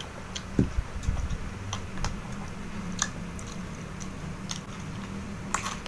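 A person chewing and eating close to the microphone: scattered wet, crisp mouth clicks and crunches a few times a second.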